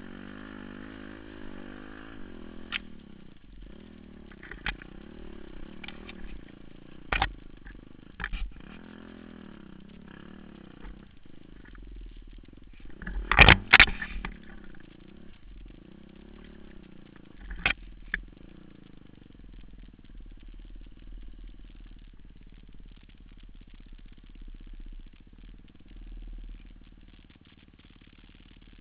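Enduro motorcycle engine running on a rough forest trail, revs rising and falling, with sharp knocks and clatter from the bike over bumps. The loudest knocks come about halfway through. The engine then settles to a steadier low run.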